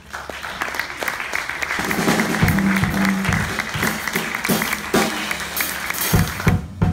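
Small audience applauding, the clapping swelling over the first second or two, with louder, heavier claps close to the microphone from about two and a half seconds in; it cuts off suddenly at the end.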